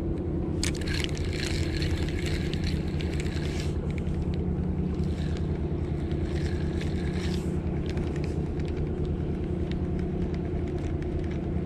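Steady low drone of a boat engine running in the harbour, with a higher whirring that comes and goes as the spinning reel is cranked to retrieve the lure.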